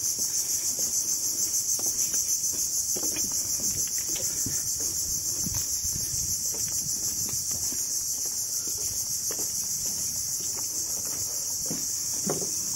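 A steady, high-pitched insect chorus that pulses evenly a few times a second.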